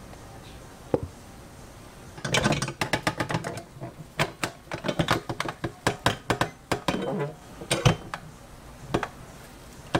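Hong Kong egg waffle iron being closed and swung over in its metal stand: metal clanking and rattling. There is one knock about a second in, then rapid rattling clicks from about two seconds, and scattered single knocks until near the end.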